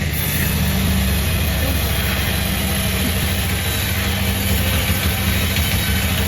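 Sawmill machinery running steadily: an engine's low, even hum with a steady high hiss over it.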